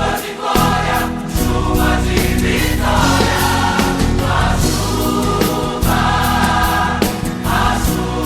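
Gospel backing track transposed two tones down: drums, bass and held choir-like backing voices sustaining chords, with no lead vocal.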